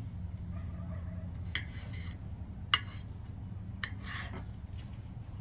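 Knife slicing through a ripe tomato in two short scraping strokes, with one sharp click of the blade or tomato against a ceramic plate between them, over a steady low background hum.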